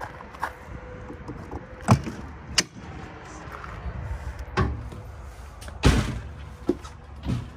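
Entry door of a 2006 Forester motorhome being unlatched and opened: a couple of sharp latch clicks, then several knocks and thumps as the coach is entered.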